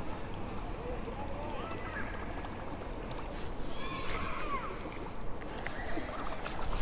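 Faint outdoor ambience from a kayak on open water, with a few short faint chirps about two and four seconds in.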